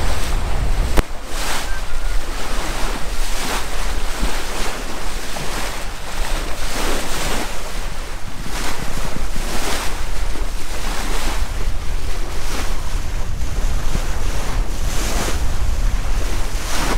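Wind buffeting the microphone over the rush and splash of water along the hull of a wooden gaff-rigged sailboat sailing hard on the wind in 20+ knots, the water noise surging irregularly as the bow meets the waves. A sharp click about a second in.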